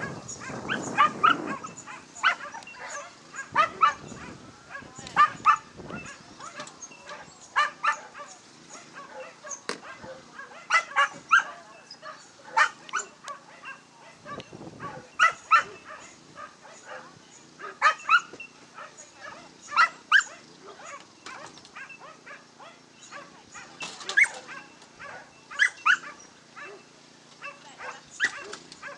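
A dog giving short, high-pitched yips and barks over and over, in clusters every second or two.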